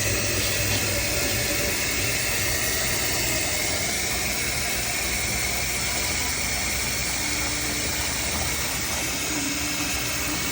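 Water running steadily into a coffee machine's water reservoir as it is filled.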